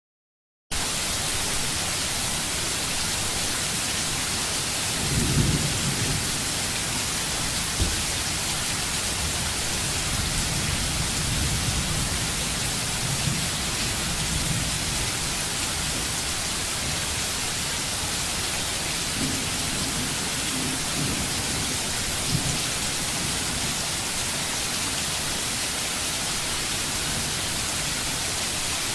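Rain-and-thunder ambience: a steady hiss of falling rain that starts abruptly just under a second in, with low rumbles of thunder coming and going, the strongest about five seconds in.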